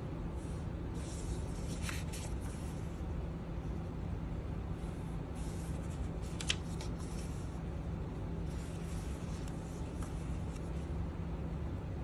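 Paper pages of a handmade junk journal being turned and handled, in several short rustles, with a sharp paper snap about two seconds in and a louder one about six and a half seconds in. A steady low hum runs underneath.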